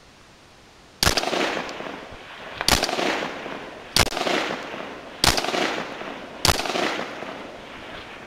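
AR-15 rifle firing American Eagle XM856 5.56×45 mm tracer rounds: five single shots beginning about a second in, roughly one every 1.3 seconds. Each shot is followed by a long echo that dies away slowly across the valley.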